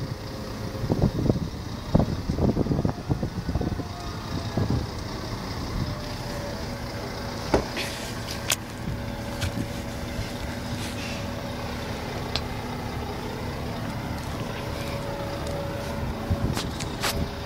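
Liebherr LTM 1200-5.1 mobile crane's diesel engine running steadily under a lift, a low drone with a steady tone above it. Irregular low buffeting on the microphone in the first few seconds, and a few sharp clicks.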